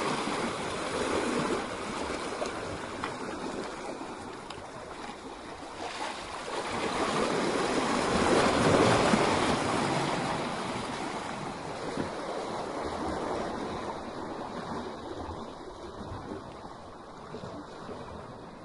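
Sea waves surging and breaking against rocks: a continuous rushing wash that builds to one big surge about halfway through, then slowly ebbs away.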